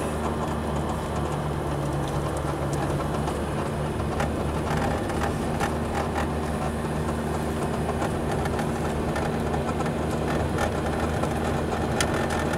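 A car's engine running steadily with tyre and road noise, heard from inside the cabin while driving up a mountain road.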